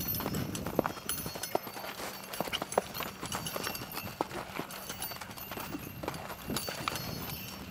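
A horse's hooves striking the ground in irregular clip-clop steps as it works through a turn on the spot (vuelta sobre parada) in a reining test.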